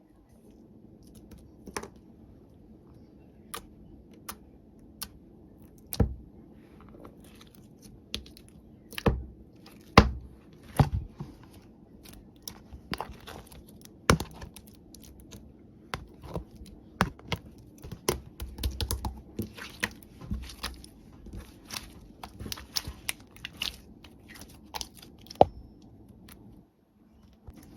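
Irregular small clicks, taps and crinkles over a low room hum, with a few louder knocks.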